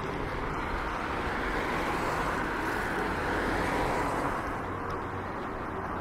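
City street noise with a vehicle going by: a steady rushing that swells in the middle and eases again.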